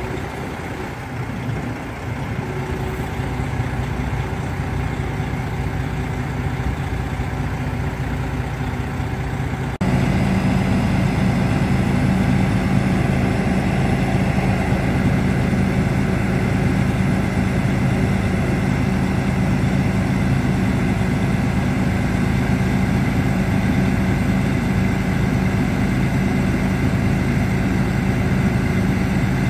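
Diesel engine of a Freightliner Columbia truck (Detroit Series 60 six-cylinder) running steadily while it powers the Hiab knuckleboom crane's hydraulics as the boom extends. The steady drone steps up suddenly about ten seconds in and runs louder, with a stronger low hum, from then on.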